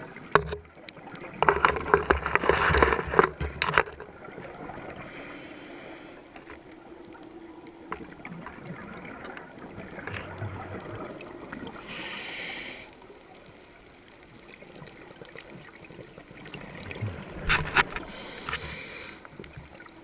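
Scuba diver breathing through a regulator underwater: loud bubbling bursts of exhaled air about two seconds in and again near the end, with short hisses of inhaled air between them.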